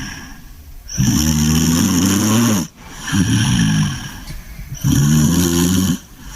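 English bulldog snoring in its sleep. There are two loud, drawn-out snores, one about a second in and one near the end, each followed by a softer snore on the next breath.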